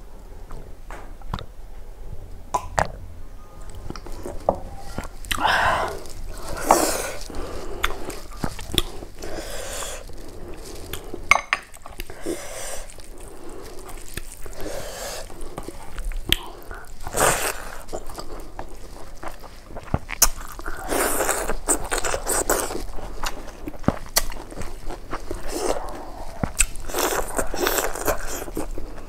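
Close-miked eating sounds: chewing and smacking of rice and cooked greens eaten with the fingers, with many small clicks and occasional crunches, and fingers squelching through rice in a steel plate.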